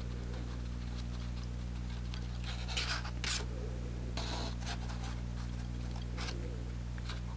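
Steady low electrical mains hum, with a few faint brief scratches from an alligator clip being unclipped and handled on the bench.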